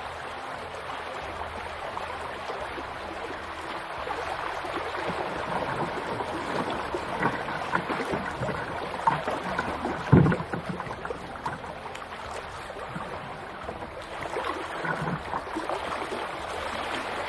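Shallow river water rushing and splashing over stones around a kayak running a riffle, with a single low thump about ten seconds in.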